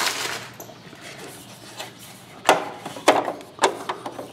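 Three sharp plastic clicks about half a second apart, a little past halfway, as the battery compartment cover inside an enMotion automatic paper towel dispenser is handled and opened.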